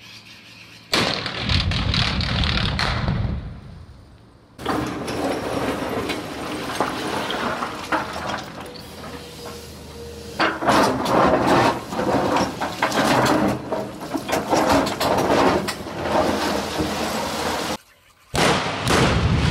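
Two construction-site rock blasts, one about a second in and one near the end. Each starts suddenly with a low thud and runs on with a few seconds of rumble. Between them is a long stretch of rough noise full of small clicks and knocks.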